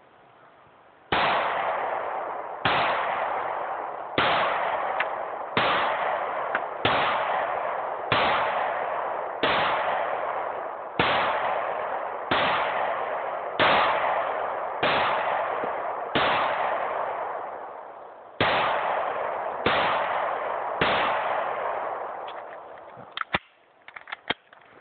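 CZ 75 P-07 pistol fired at a slow, steady pace: about fifteen shots roughly one and a half seconds apart, with one longer pause two-thirds of the way through, each sharp report trailing off over a second or so. A few light clicks near the end.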